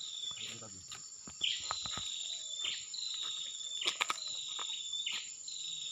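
Insects calling in the open: a steady high-pitched drone with a repeated, slightly falling chirp about once a second. Scattered rustling and light knocks run under it.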